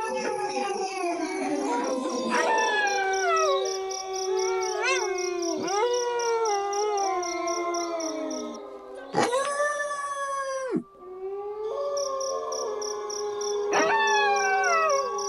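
A pack of wolves howling in chorus: several overlapping howls sliding up and down over one long held note, with short rising yips in between. A louder howl comes in about nine seconds in and stops abruptly a couple of seconds later.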